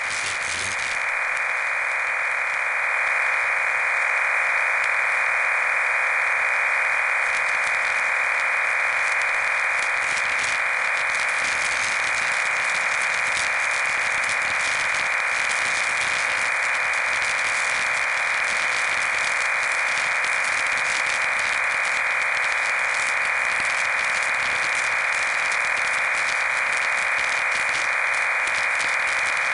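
Steady radio static: an even hiss from a receiver with no signal tones in it, swelling slightly over the first few seconds.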